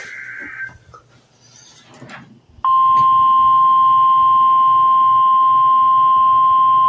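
A brief burst of warbling data tones, then about two and a half seconds in a single steady, loud alert tone comes on and holds. It is the 1050 Hz warning alarm of a NOAA Weather Radio broadcast, sounding ahead of a tornado warning.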